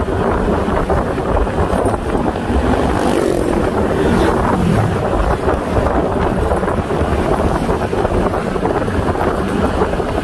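Wind buffeting the microphone on a moving motor scooter, with the scooter's engine running steadily underneath.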